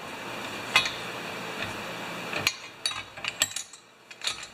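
Snowblower recoil starter assembly being handled and clamped in a steel bench vise: a ratcheting mechanical rattle, then a series of separate clicks and knocks.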